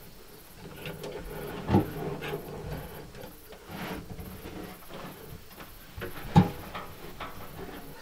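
Scattered knocks and creaks, with two sharp thumps, one just under two seconds in and a louder one about six seconds in.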